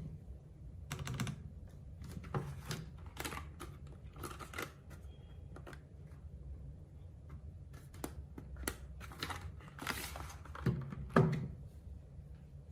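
Typing on a Fuhlen H95s mechanical keyboard with Fuhlen Yellow switches and PBT keycaps: irregular runs of keystrokes with short pauses between, the loudest cluster near the end.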